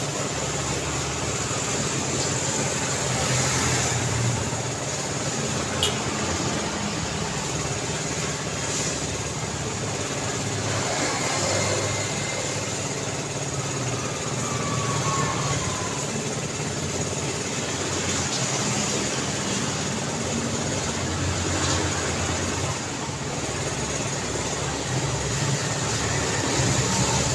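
Daytime road traffic: a steady mix of passing vehicles' engines and tyre noise, with one sharp click about six seconds in.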